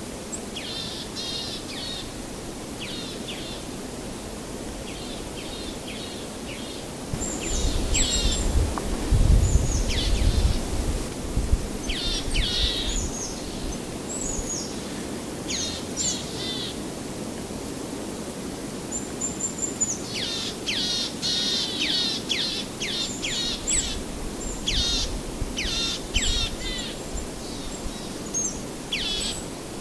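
Songbirds chirping over and over in short, quick call phrases above a steady background hiss, with low rumbles twice, about a quarter of the way in and again toward the end.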